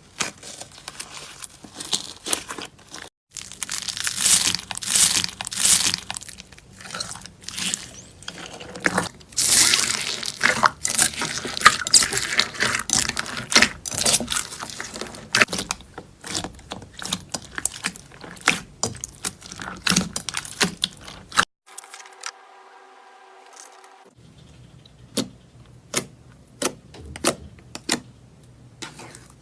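Slime being squeezed and stretched by hand, with dense crackling, sticky tearing and popping sounds. About two-thirds in there is a brief lull, then a series of separate sharp pops.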